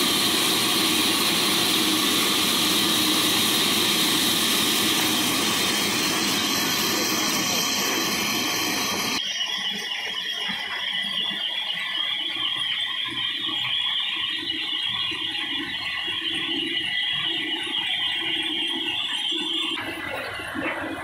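Belt-driven band sawmill running, with a loud high squealing noise from the saw. About nine seconds in, the sound changes abruptly to a quieter steady machine run with a regular low beat a little more than once a second and a high whine above it.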